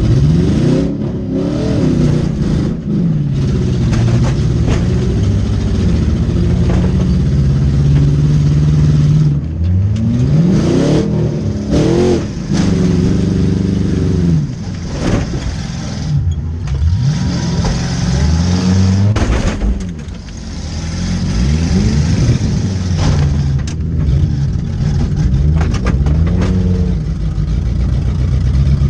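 Demolition derby car's engine revving hard up and down again and again as it accelerates and backs into hits, with several sharp bangs of impacts along the way.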